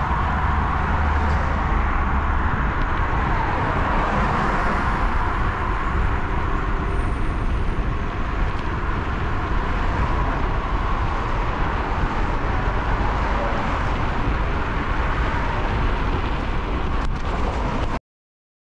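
Steady rushing noise of riding a bicycle along a road: wind on the microphone mixed with road noise. It cuts off suddenly near the end.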